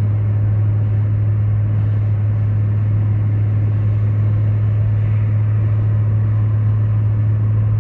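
Car driving at a steady speed, heard from inside the cabin: a constant low engine and exhaust drone over even road noise.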